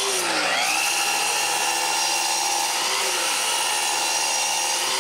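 Festool KS 120 EB sliding miter saw running with a steady whine while cutting plywood. Its pitch dips briefly about a third of a second in and again near three seconds as the blade takes the load of the cut.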